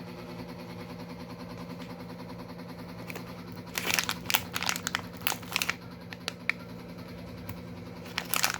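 Plastic cat-treat packet crinkling, in a cluster of crackles about four seconds in and again near the end, over a steady low hum.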